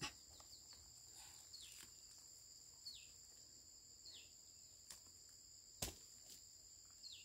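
Faint high-pitched insect trilling, steady throughout, with a short falling call, likely a bird's, repeated about every second and a half. A few light clicks are heard, with a sharper knock near the end.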